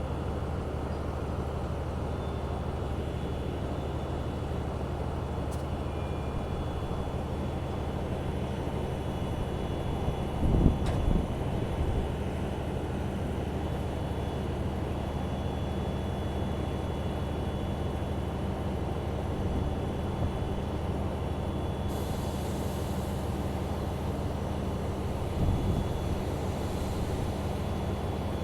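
Locomotive of a cement freight train running with a steady low drone during shunting. Heavy low thumps come about ten seconds in and again near the end, and a higher hiss starts about two-thirds of the way through.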